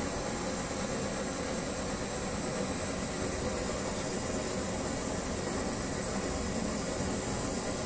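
Brass kerosene pressure stove (Primus-type babour) burning, its burner giving a steady, unchanging hiss.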